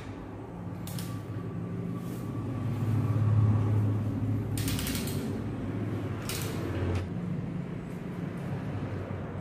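Bicycle chain rattling and metal clicking against the rear derailleur and cassette as the rear wheel is worked out of the frame. A quick run of ratchet-like ticks comes about halfway through, over a low steady hum.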